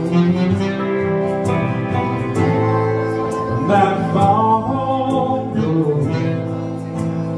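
Live acoustic band playing a song: acoustic guitar strummed, electric keyboard chords and voices singing, with a wavering held note about halfway through and light high ticks keeping the beat.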